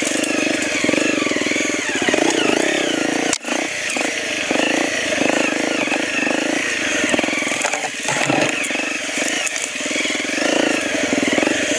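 Honda CRF250L's single-cylinder four-stroke engine running as the bike is ridden off-road, its revs rising and falling.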